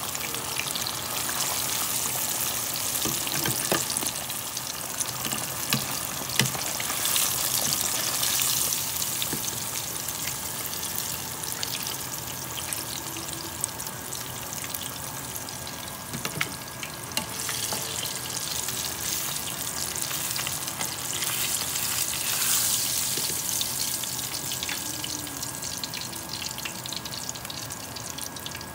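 Fish pieces deep-frying in hot oil in a pan, a steady crackling sizzle. A few sharp clicks come from metal tongs against the pan as the fish is turned and lifted out.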